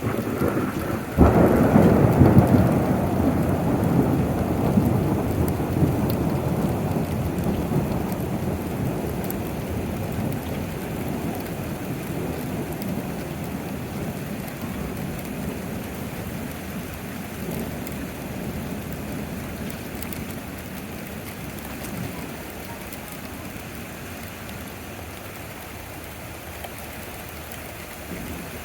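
A sudden thunderclap about a second in, then thunder rumbling and slowly dying away over the next twenty seconds, over steady falling rain.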